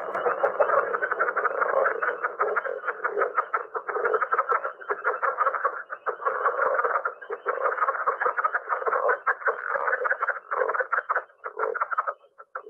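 Recorded southern leopard frogs calling: a dense, fast run of clucking croaks that sounds like laughter or a little chuckle, with a few short breaks near the end.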